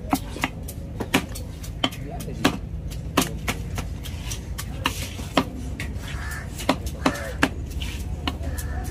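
Heavy knife chopping and cutting tuna loin on a wooden log chopping block: sharp, irregular strikes of the blade through the fish into the wood, about one or two a second.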